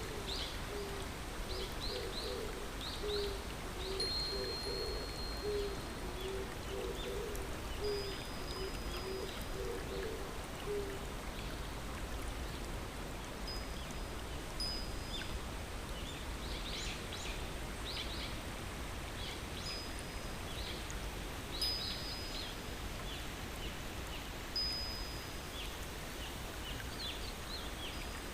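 Steady rush of flowing river water with birds chirping and giving short, thin whistles throughout. During roughly the first ten seconds a low call repeats in a quick series of short notes.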